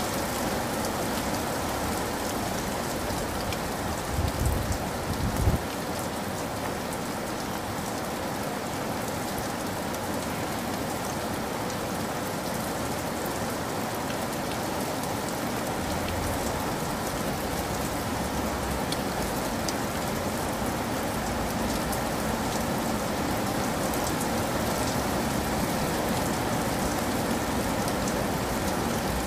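Steady rain falling, an even hiss without pauses, with a brief low rumble about four to five seconds in.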